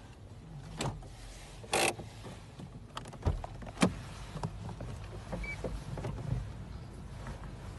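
Low car-cabin rumble with several sharp knocks and taps from a hand against the door and side-window glass. The loudest is a short rush of noise about two seconds in, and sharper knocks follow a little after three and four seconds.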